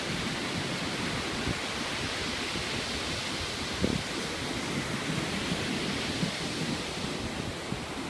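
Ocean surf breaking and washing up the beach, a steady rushing hiss, with a brief low thump about four seconds in.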